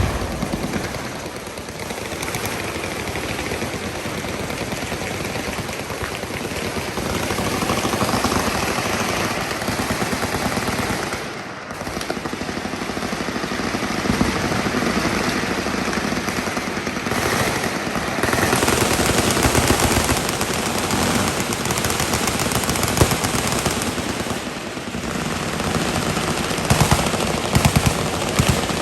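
Sustained full-auto machine-gun fire, a dense, near-continuous rattle of shots, with a brief lull about a third of the way through and a few louder cracks near the end.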